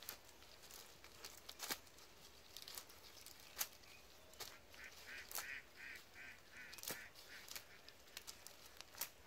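Faint rustling and sharp clicks as a cast net is handled by hand over dry leaf litter. About halfway through, a run of about eight short nasal calls, about three a second, from a bird in the background.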